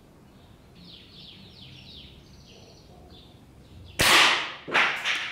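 A 5.5 mm Mendoza Quetzalcóatl air rifle fires once about four seconds in: a sudden sharp shot that rings briefly, followed just under a second later by a second, shorter crack.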